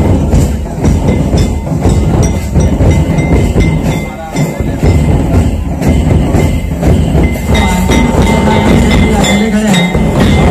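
Traditional drum ensemble: large hanging drums, some barrel-shaped, beaten with sticks in a dense, driving beat. A held note joins in about three-quarters of the way through.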